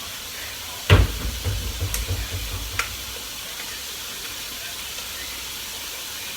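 Chicken frying in a pan with a steady sizzle. About a second in there is a sharp knock, then a run of lighter knocks over the next two seconds as a utensil works the pan.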